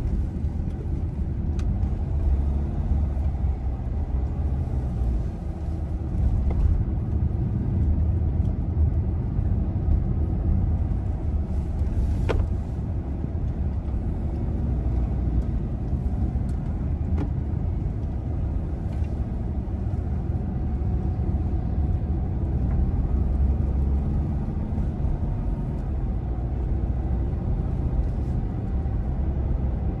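A car being driven, a steady low rumble of engine and road noise, with a few light ticks.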